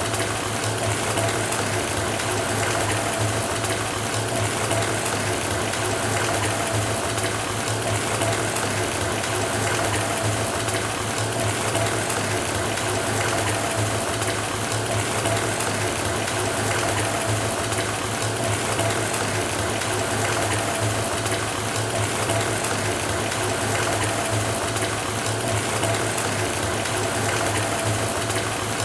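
Water from a bathtub faucet running steadily into a filling tub, an even rushing splash with a low steady hum underneath.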